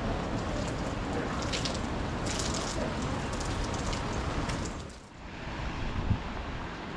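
Wind buffeting the microphone with rain, a steady rushing noise with gusty hissing streaks. It dips briefly about five seconds in, then carries on quieter, with a single short thump soon after.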